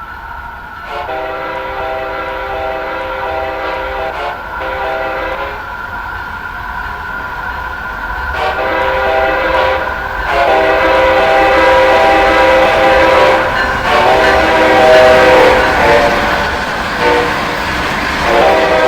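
Amtrak locomotive's multi-note air horn sounding a chord in about six blasts, some long and some short, played as a horn show. Under it the train's running noise grows steadily louder from about halfway through as the train comes closer.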